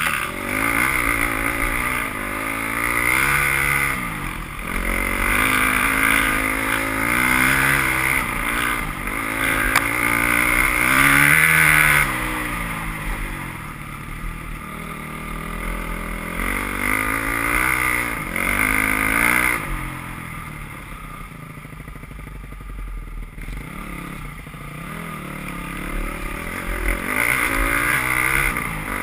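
Enduro dirt bike's engine, heard on board the bike, revving up and dropping back again and again as the rider works the throttle over the trail. About twelve seconds in the revs fall to a lower, quieter run, then climb again near the end.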